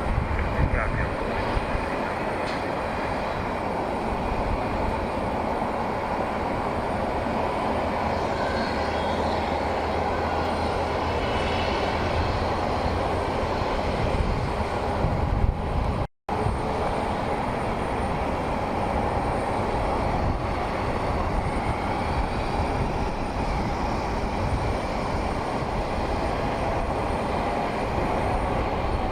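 Steady rumble of aircraft engines at an airport, drowning out everything else. It drops out for an instant about halfway through.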